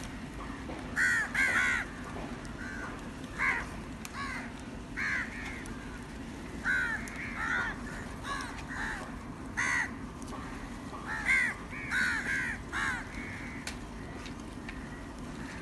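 Crows cawing again and again, often two or three calls in quick succession, over a steady low background hum.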